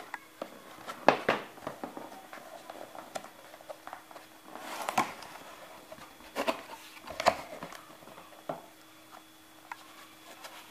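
Cardboard packaging of a graphics card box being opened and handled: scattered rustles, scrapes and light knocks, the loudest about a second in, around five seconds and around seven seconds in.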